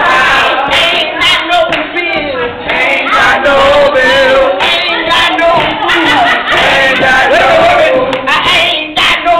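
A group of men and women singing and calling out together, unaccompanied.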